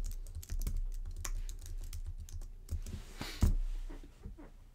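Irregular light clicks and taps, like typing on a keyboard, with one louder knock about three and a half seconds in.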